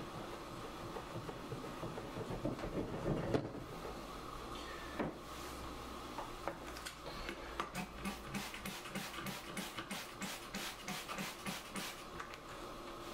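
Trigger spray bottle of carpet spot cleaner squirting onto carpet in a quick run of short hissing sprays, about three a second, in the second half. Before that there is light handling noise with a single knock.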